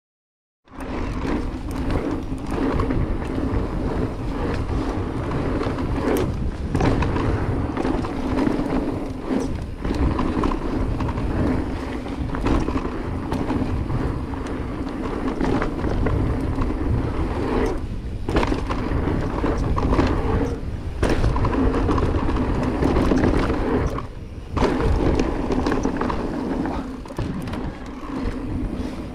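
Electric mountain bike ridden down a dirt flow trail: knobby tyres rolling over packed dirt, with the bike rattling over bumps and wind buffeting the action camera's microphone. It starts abruptly within the first second and goes briefly quieter twice, about 18 and 24 seconds in.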